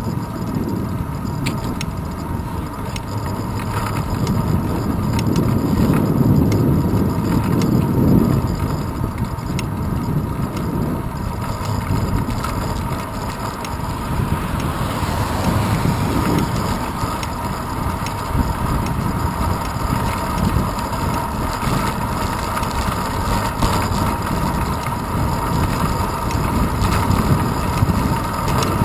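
Wind buffeting and road rumble from a bicycle rolling along asphalt, picked up through a handlebar-mounted GoPro Hero 2 housing, louder for a few seconds from about four to eight seconds in. A faint steady whine sits underneath.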